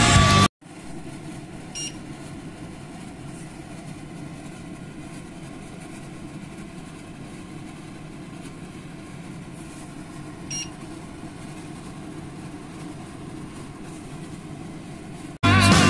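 Steady low kitchen hum with a faint hiss, the stove-side sound of bitter gourd frying in a steel wok, broken twice by a short electronic beep about nine seconds apart. Rock music cuts off half a second in and returns near the end.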